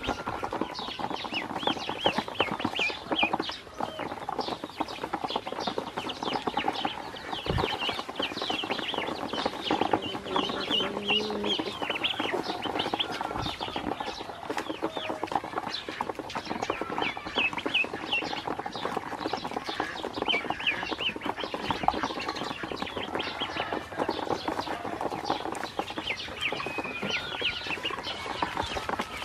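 A group of domestic ducklings peeping continuously, many short high calls overlapping, with quick clicks and splashes as their bills dabble and peck at feed in shallow water in a plastic basin.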